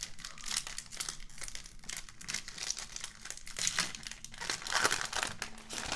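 A foil trading-card pack wrapper crinkling and tearing as it is ripped open by hand, with a burst of louder crackling about five seconds in.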